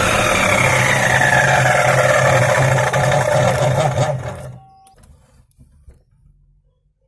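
Ryobi electric miter saw running as its blade cuts through a green tree branch, with a steady low hum and a whine that slowly falls in pitch. About four seconds in the saw stops and the sound dies away quickly to near quiet.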